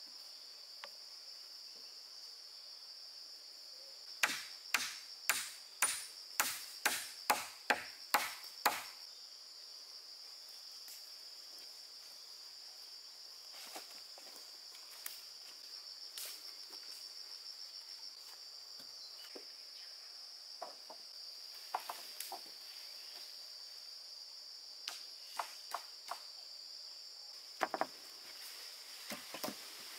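A run of about ten sharp tool strikes, roughly two a second, then a few scattered fainter knocks and clicks, over a steady high-pitched insect chorus.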